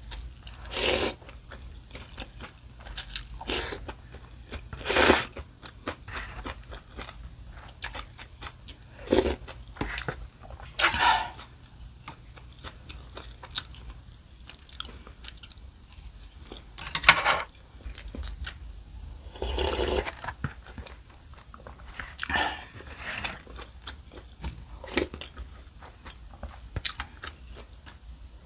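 Instant bowl noodles being slurped and chewed. Quiet chewing alternates with several louder slurps a few seconds apart.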